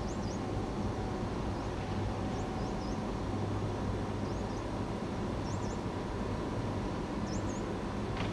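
Steady hum with a faint high whine from an SBB Re 460 electric locomotive standing with its Interregio train, with short bird chirps now and then.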